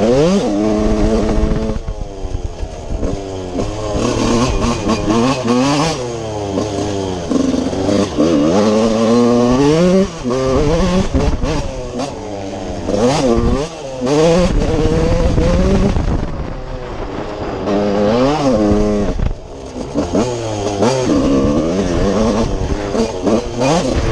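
TM Racing 125 two-stroke motocross engine heard from on board, revving up and falling back again and again as the rider accelerates, shifts and rolls off, with short knocks and clatter in between.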